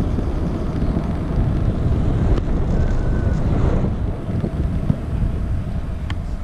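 Wind buffeting the microphone of a camera on a moving bicycle, a dense low rumble that eases a little in the second half as the bike slows. A brief faint high tone sounds about three seconds in, and there are a couple of light clicks.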